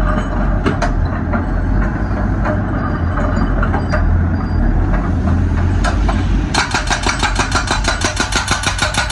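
Excavator engine running steadily with a few scattered knocks, then the hydraulic rock breaker starts hammering about two-thirds of the way in, a fast even train of strikes at about eight blows a second against the rock.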